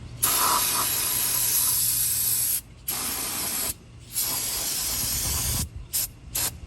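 Aerosol can of brake cleaner spraying in three long hissing bursts, then a few short spurts near the end.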